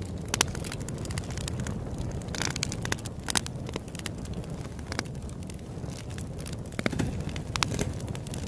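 Wood fire crackling, with irregular sharp pops from the burning logs over a steady low rumble.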